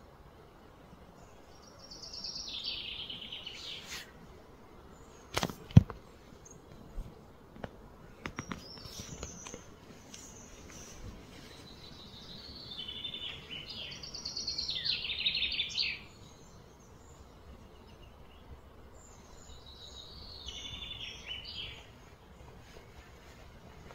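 Outdoor ambience with three bursts of high-pitched, rapidly pulsed chirring calls, each lasting about two seconds. A single sharp click about six seconds in is the loudest sound, followed by a few fainter clicks.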